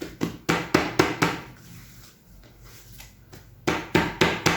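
Hands patting and pressing sourdough on a floured work surface: a quick run of short taps in the first second and a half, a pause, then another run near the end.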